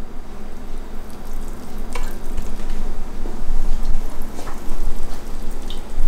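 Dye liquor running and dripping off a hank of wet, freshly dyed fibre back into a glass jar of red dye: a steady hissing trickle with a few sharp clicks.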